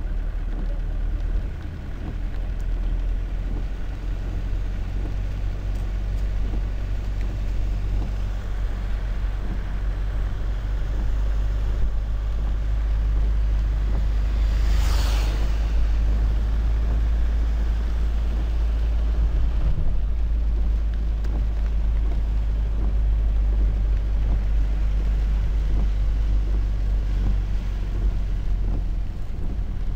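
Steady low rumble of a car's engine and tyres heard from inside the moving car, with a brief rushing hiss about halfway through.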